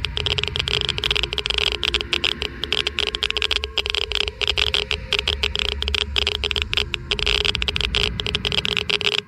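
Geiger counter clicking rapidly and irregularly in a dense crackle, over a low rumble that cuts off near the end.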